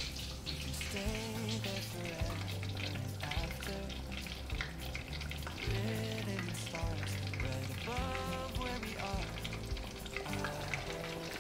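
Scratchy scraping of a spatula spreading sauce and mustard across slices of soft white bread, over quiet background music with a melody and held bass notes.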